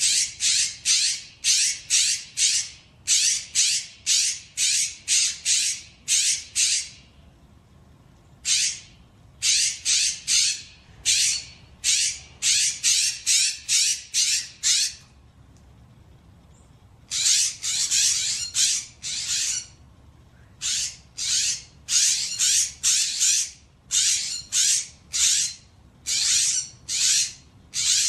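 Western scrub jays giving harsh screech calls, about two a second, in runs of several seconds broken by short pauses: the screeching they raise in chorus on seeing a dead jay.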